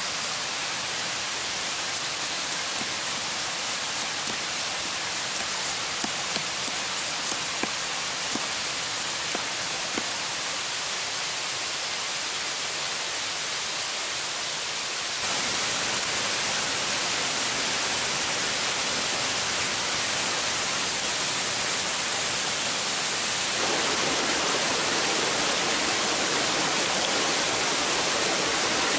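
Steady rushing hiss of flowing stream water. It jumps abruptly louder about halfway through and again near the end, and the last stretch sounds fuller and deeper. A few faint ticks come in the first half.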